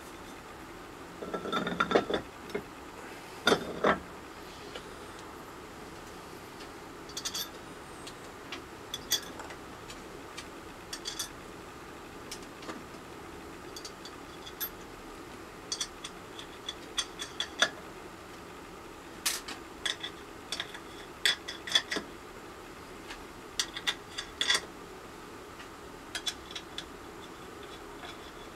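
Metal and plastic press parts and an embossing die being handled and set together: scattered clicks, clinks and light knocks, with a louder clatter about two seconds in and again near four seconds.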